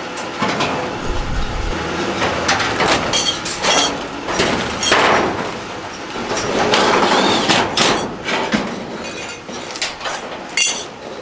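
Steel panels of a Yodoko metal storage shed being fitted together: repeated sharp metal knocks and clanks over scraping and rattling of thin sheet steel.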